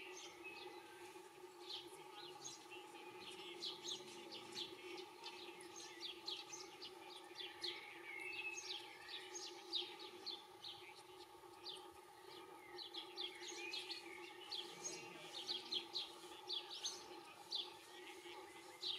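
European goldfinch twittering: a rapid, continuous run of short, high chirps. A steady low hum runs underneath.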